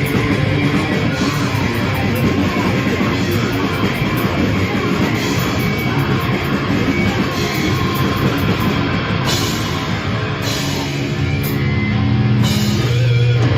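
Rock band playing a heavy, distorted riff live on electric guitar and drums, with cymbal crashes. About eleven seconds in, the dense strumming gives way to held low chords.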